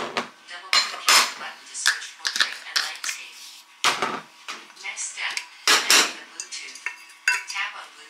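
Kitchen clatter: a metal spoon, a glass coffee jar and drinking glasses clinking and knocking as they are handled and set down on a steel counter, in a string of irregular sharp knocks, the loudest a little after a second in, at about four seconds and just before six seconds.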